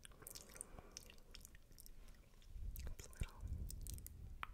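Wet mouth sounds made right against a microphone: many scattered spit clicks and smacks of the tongue and lips, with a soft low rumble that swells about three seconds in.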